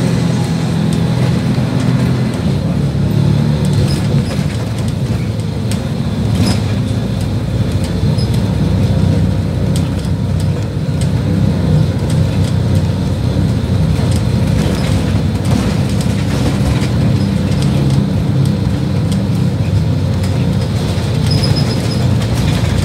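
City bus under way, heard from inside the cabin: a steady low engine drone and road rumble, with scattered light clicks and rattles.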